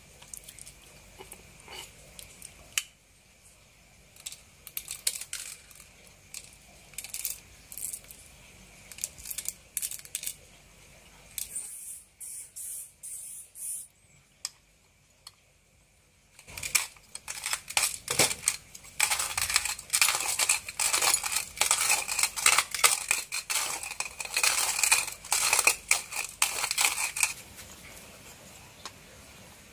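Stainless-steel hand coffee grinder being handled: scattered clicks as its metal parts are fitted together. Then, about halfway through, some ten seconds of dense, loud rattling of coffee beans against the metal.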